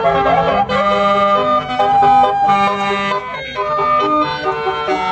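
Basuri-type telolet multi-tone horn playing a melody: several sustained tones at once, changing note every half second to a second.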